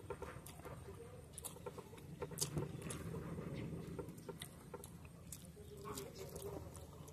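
Close-miked eating sounds: instant ramen noodles being chewed and slurped, with many small wet mouth clicks and smacks.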